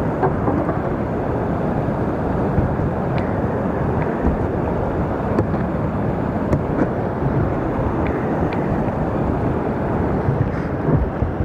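Whitewater rapids and a small waterfall rushing steadily close by, with a few faint clicks over the top.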